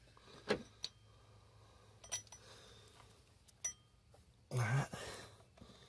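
A few light metallic clicks and taps as hands work a mounting bolt and the pulley at the power steering pump in a car engine bay. A brief low voice sound follows near the end.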